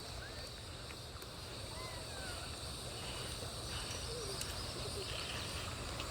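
Outdoor ambience: a steady high insect drone over a low steady rumble, with a few faint bird chirps.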